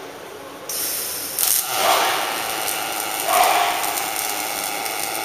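Robot-held MAG pulse welding arc on 2.0 mm stainless steel plate, striking suddenly about a second in and then running as a steady hiss.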